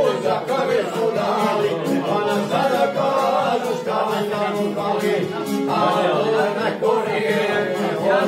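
Two men singing a Posavina folk song in long, held notes, with a violin and a long-necked plucked string instrument playing along.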